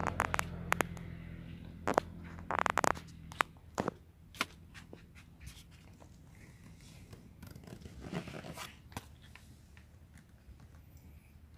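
Scratchy rustling and sharp clicks of close handling, thick in the first few seconds and then fainter and sparser, over a low steady hum that fades out about three seconds in.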